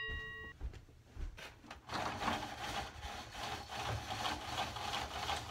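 Window shade being hauled up by its cord: a rapid rasping, rubbing rattle for about four seconds, starting about two seconds in.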